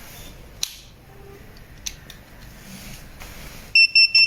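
A few faint clicks, then near the end a rapid, high-pitched electronic beeping starts, several short beeps a second.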